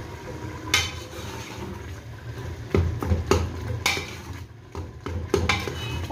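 Metal ladle stirring minced chicken in an aluminium pressure cooker, scraping and knocking against the pot with about six sharp clinks, as the keema is fried (bhuna).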